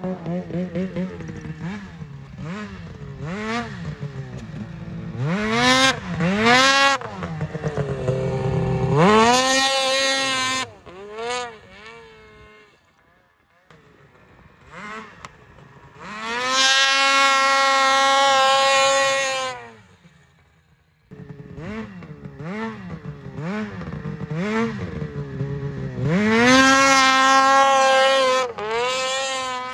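Snowmobile engine revved hard again and again, its pitch sweeping up and down and held at high revs for a few seconds at a time as the sled is pulled up into wheelies, with short lulls between runs.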